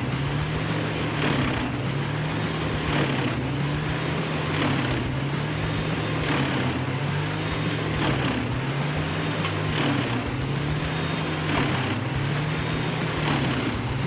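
Engine running steadily, its pitch rising and falling in a regular cycle about every second and a half, with a faint knock at each cycle.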